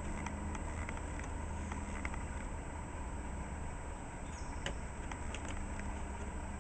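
Buff Orpington chicken making a low, steady droning noise that breaks off and resumes, with a few light clicks scattered through it.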